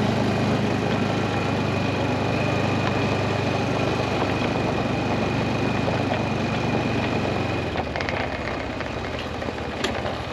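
A vehicle's engine running steadily under way. It eases off about eight seconds in, and a few sharp clicks follow near the end.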